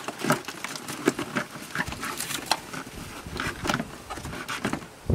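Plastic windshield washer fluid reservoir being worked loose and lifted out of an engine bay: a run of irregular clicks, knocks and scrapes of hollow plastic against the car body and wiring.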